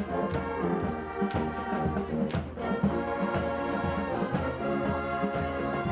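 High school marching band playing: brass holding chords over drum strokes about twice a second, with a cymbal crash about two seconds in.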